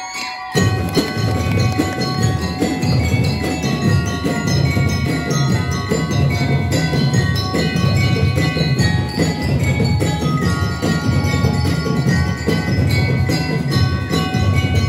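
Drum and lyre corps playing: bell lyres ring out a melody of clear, struck notes over a dense, steady pattern of drums. The music comes in abruptly about half a second in.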